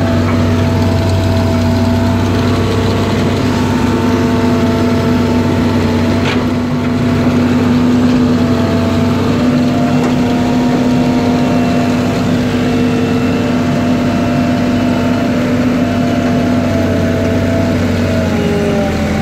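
Excavator's diesel engine running steadily, with a constant low hum and fainter tones that waver slightly as the machine works, heard from inside the operator's cab.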